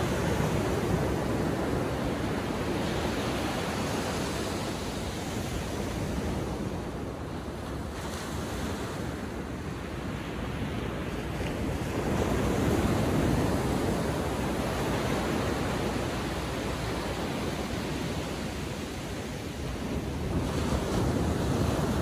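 Atlantic Ocean surf breaking and washing up the shore, swelling louder near the start, about halfway through and again near the end.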